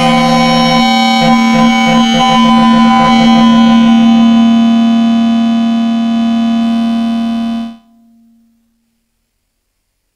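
Make Noise Shared System modular synthesizer playing a loud, distorted drone on one steady low pitch with rich overtones, with a rhythmic pulsing over the first few seconds. It cuts off suddenly near the end.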